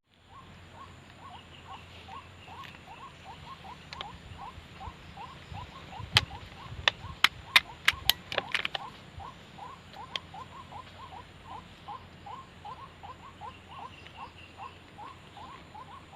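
White-breasted waterhen calls: a short note repeated steadily, about three times a second. A quick run of sharp, loud clicks breaks in about six seconds in and lasts a couple of seconds.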